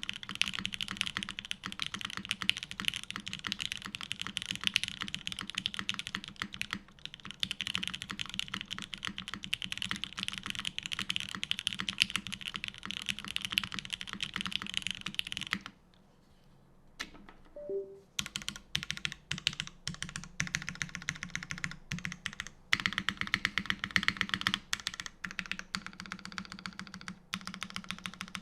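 Custom mechanical keyboard with lubed Gateron Oil King linear switches in a polycarbonate-plate RBB case being typed on quickly and steadily. About halfway through, the typing stops for roughly two seconds, with a few stray clicks and two short low tones, then resumes with more spaced keystrokes.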